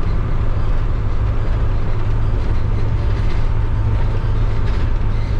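Converted minibus motorhome driving, with a steady low engine drone and road noise.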